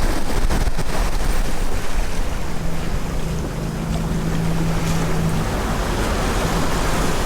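Wind and sea rushing past a large sailing yacht under way, with wind buffeting the microphone. A steady low hum comes in for a few seconds in the middle.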